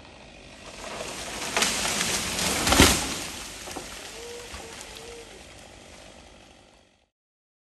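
A felled eucalyptus tree falling: branches crash through the canopy, rising for about two seconds, then the trunk hits the ground with a heavy thud near the middle. Broken limbs and brush rustle as it settles and fades.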